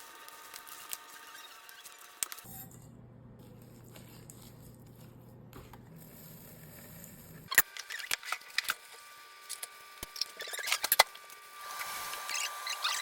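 Scattered small clicks and taps, typical of handling food-preparation utensils, with a scratchy rustle starting near the end.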